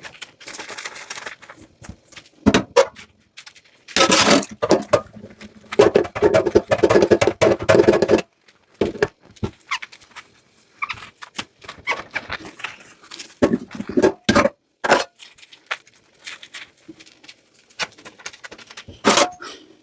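Dishes and utensils clattering and knocking in a kitchen sink while being washed, with about four seconds of continuous washing noise a few seconds in.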